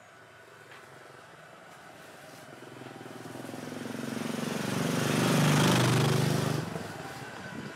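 A small engine approaching and passing close by, growing steadily louder to a peak about five to six seconds in, then dropping away abruptly.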